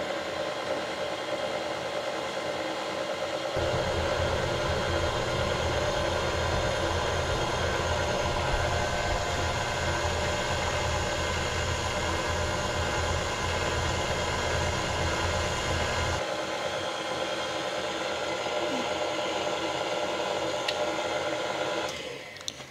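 KitchenAid stand mixer running steadily as its flat beater mixes cookie dough with the dry ingredients, with a deeper hum for a stretch in the middle. The motor switches off near the end.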